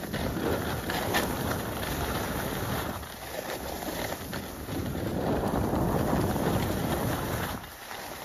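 Wind rushing over the microphone of a skier on the move, mixed with the scrape and hiss of skis running over snow, swelling and easing with the turns and dropping briefly near the end.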